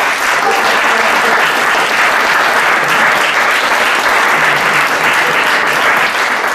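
Audience applauding steadily at the end of a performance.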